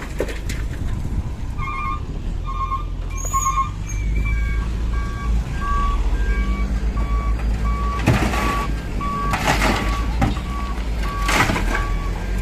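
Dump truck's reversing alarm beeping about twice a second, starting a second or so in, over the steady low run of its diesel engine. Three short bursts of hiss cut in during the second half.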